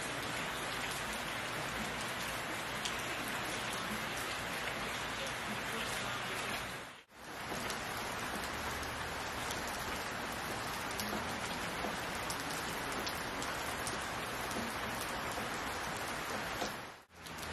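Steady rain falling on leaves and a wet railing: a dense, even hiss with fine patter of individual drops. It dips away briefly twice, about seven seconds in and near the end.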